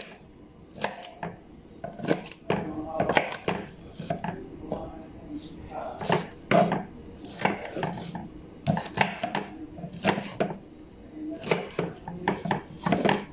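Kitchen knife slicing and dicing a green bell pepper on a wooden cutting board: a run of irregular knocks as the blade cuts through and strikes the board.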